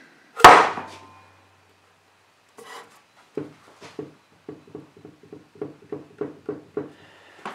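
A thick, twisted poplar board set down on a cast-iron machine table with one loud knock, then rocked by hand so it clacks against the table in quick, even knocks about four a second as it teeters on its high corners: the sign of the board's twist.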